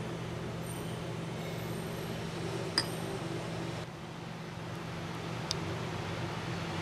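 A metal spoon clinking once against crockery about three seconds in, a short bright ring over a steady low hum, with a fainter tick a few seconds later.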